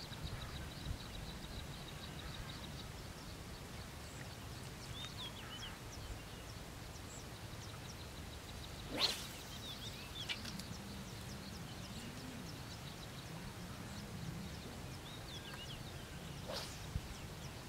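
Quiet rural lakeside background with faint, scattered high bird chirps. About halfway through, a long fishing pole swishes sharply through the air as it is swung to cast the frog bait, with a lighter swish near the end.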